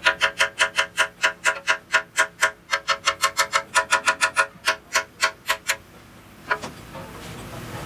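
Hammer striking the weld repair on a cast-iron tractor transmission housing in a fast, even run of about five blows a second. Each blow rings with a metallic tone. The blows stop about six seconds in, followed by two lighter taps.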